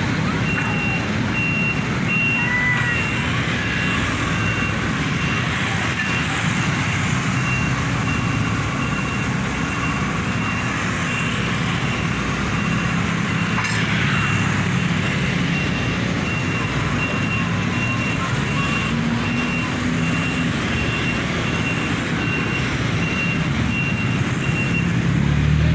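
Diesel engine of an excavator running steadily, with a high-pitched alarm beeping at an even pace through most of the stretch and stopping shortly before the end.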